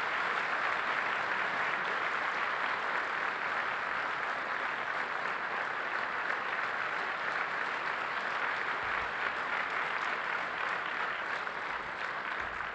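Audience applauding, steady throughout and easing off a little near the end.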